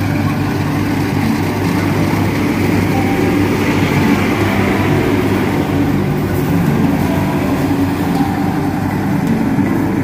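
Rice combine harvester working a paddy: its engine runs with a steady drone under a dense mechanical rush, swelling a little about four seconds in.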